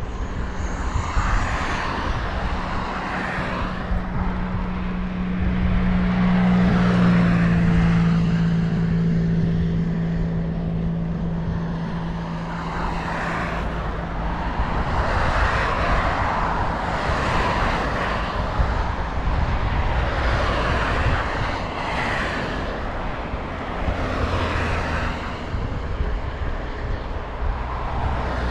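Road traffic passing on an adjacent road, tyre noise swelling and fading every few seconds, over wind rumble on the microphone of a moving bike's action camera. In the first half a steady engine drone grows to its loudest about seven seconds in, then slowly drops in pitch as it fades.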